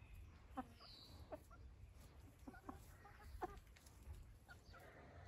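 Chickens giving about half a dozen short, faint clucks, spaced irregularly.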